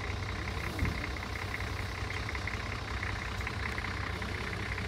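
A vehicle engine running steadily at a low, even note, with a brief bump a little under a second in.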